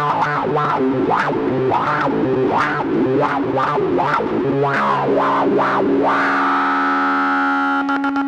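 Electric bass played through a Morley 20/20 Power Fuzz Wah pedal: fuzz-distorted bass notes with the wah rocking open and shut in quick repeated sweeps. About halfway in, a long fuzzed note is held and sustains to the end.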